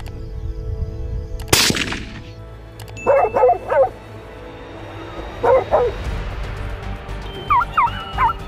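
A single rifle shot about a second and a half in, followed by two short bursts of canine yelping and barking and then high, gliding whines near the end, over a steady music bed.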